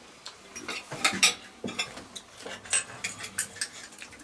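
Cutlery and tableware clicking and clinking irregularly, a string of light taps with a small cluster about a second in.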